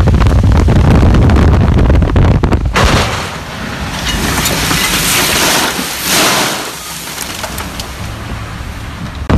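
Heavy low rumble of wind and road noise buffeting a phone's microphone in a moving vehicle. About three seconds in, a loud hissing patter as spilled canola seed showers onto the windshield and body, thinning after a few seconds into quieter road noise.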